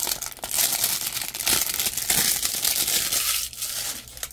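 Clear plastic shrink-wrap crinkling and crackling as it is peeled and pulled off a CD case. The crackling dies down about three seconds in.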